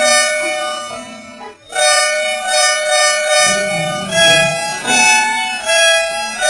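Bus horn sounding a long steady blast that breaks off for a moment about a second and a half in and starts again, then from about four seconds in changes pitch every second or so like a short tune, as a musical horn does.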